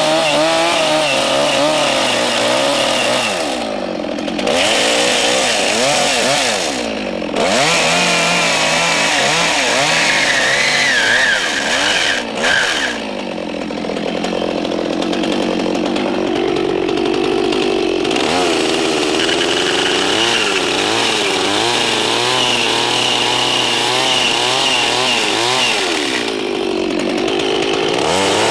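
Two-stroke chainsaw running while its bar cuts and trims the face of a square notch in a log. The engine pitch rises and falls repeatedly, dropping back briefly several times as the cuts are made.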